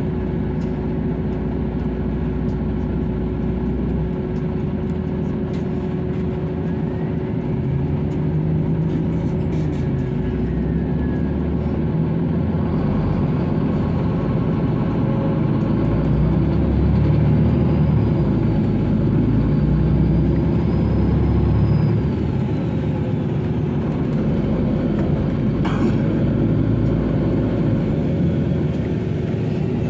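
Bus engine and road noise heard inside the moving bus's cabin on a wet road. It is a steady low rumble with a constant hum, growing louder through the middle and easing back about two-thirds of the way through.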